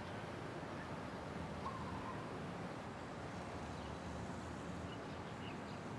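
Quiet outdoor ambience: a low steady hum with a few faint bird chirps.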